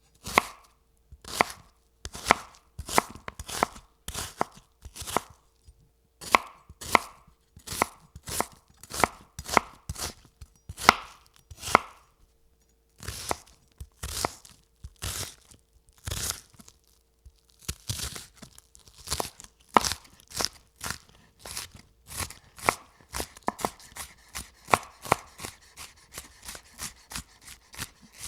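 Knife chopping food, a steady run of sharp strokes about two a second that quickens toward the end.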